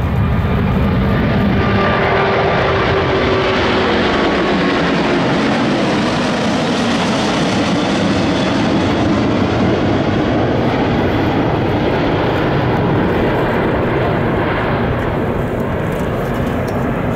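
Airbus A380 with four Rolls-Royce Trent 900 turbofans passing close by: a loud, steady rush of jet noise, with engine tones that slide down in pitch over the first several seconds as the aircraft goes past.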